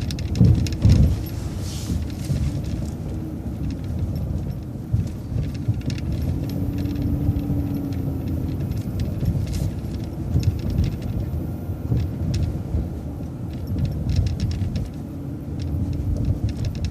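City transit bus running, heard from inside the cabin: a steady low engine and road drone with light rattles and clicks from the bus's fittings.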